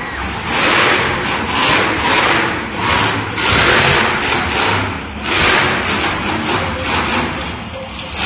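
Monster truck engine revving hard, rising and falling in repeated throttle surges about once a second.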